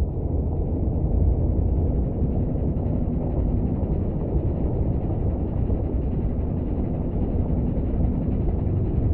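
Engine running: a steady low mechanical rumble.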